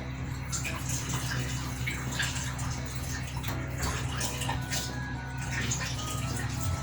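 Microwave oven running with a steady low hum, while the pot of instant noodles in tomato sauce bubbles inside with a hiss and frequent small pops.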